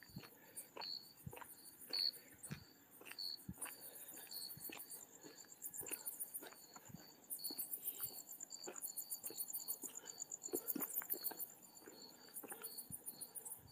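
Crickets chirping at night, an even chirp about four times a second, with a higher insect trill coming and going in stretches of about a second. Light taps sound every half second or so under them.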